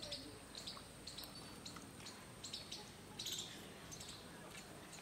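Faint, scattered bird chirps, with a denser run of chirping about three seconds in.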